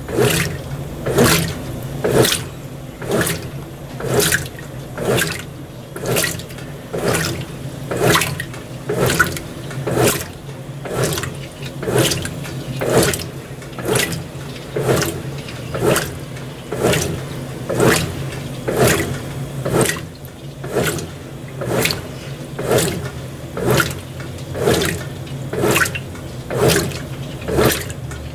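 Brastemp BWT12 top-loading washing machine agitating a delicates load in water: a regular swish of sloshing water about once a second, over the low hum of the motor.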